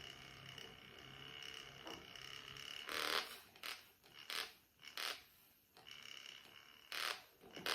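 A small handheld electric whisk whirring steadily with a thin whine and low hum while whipping heavy cream, its motor said to be dying; from about three seconds in it is broken up by a series of short scraping rubs, with the whine coming back briefly near the end.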